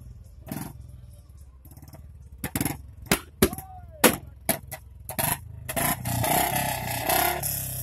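Royal Enfield Bullet motorcycle's single-cylinder engine running at a steady low idle, crossed by a string of sharp knocks and clicks, with a louder stretch of noise lasting about a second and a half near the end.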